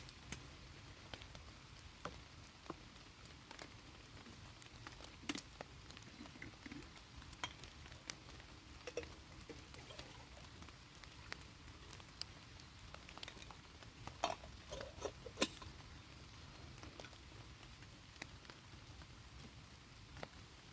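Irregular light taps and clicks over a low steady rumble, with a short cluster of louder knocks about fourteen to fifteen seconds in.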